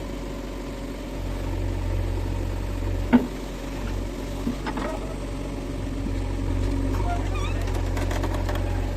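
Diesel engine of heavy machinery running steadily at low revs, with a sharp metallic knock about three seconds in and a lighter one near the middle.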